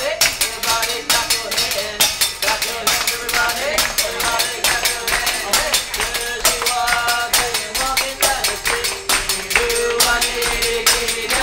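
Upbeat music with a fast, steady percussive beat under a melody, with hand-clapping along to it.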